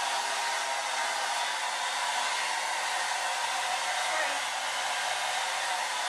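Hand-held blow dryer running steadily on its lowest heat setting, a continuous rush of air with a faint whine underneath, blown onto a plastic bag covering the head.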